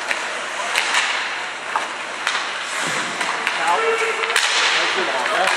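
Ice hockey play in a rink: a steady hiss of skates and crowd noise, broken by several sharp clacks of sticks and puck. A distant voice calls out briefly about two thirds of the way in.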